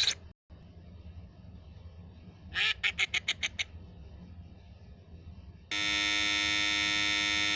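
Comedy sound effects: a quick run of about seven quack-like honks, then a loud, steady buzzer tone held for about two seconds.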